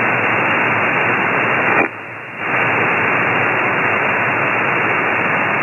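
Steady hiss of shortwave static from an HF single-sideband radio receiver on the 8933 kHz aeronautical channel between voice transmissions. The hiss dips briefly for about half a second about two seconds in.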